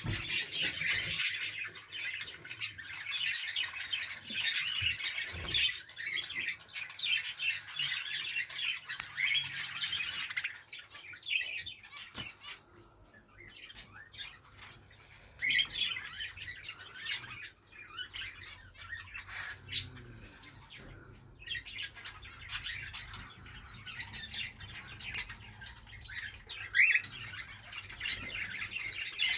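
Budgerigars chattering and warbling for about the first ten seconds, then cockatiels calling with chirps and squawks, busier again near the end, where one call rises in pitch.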